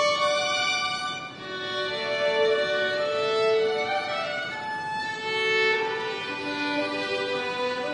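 A violin playing a slow melody of held notes.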